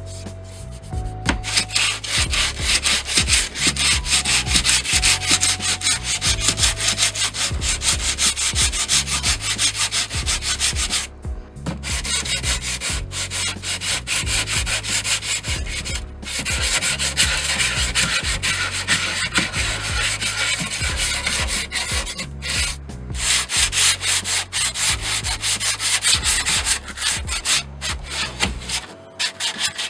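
Sandpaper rubbed on teak wood in quick, continuous strokes, with a few short pauses, about 11 and 16 seconds in and briefly near the end.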